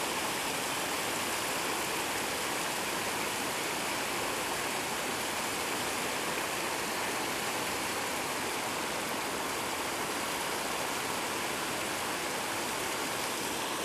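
Steady rushing of running water, an even hiss that holds at the same level without a break.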